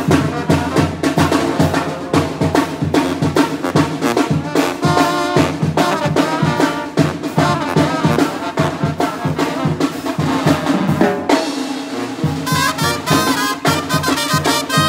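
Tamborazo brass band playing live: trumpets, trombone and sousaphone over a steady beat on bass drum and snare. The drums drop out briefly about three-quarters of the way through, then the full band comes back in.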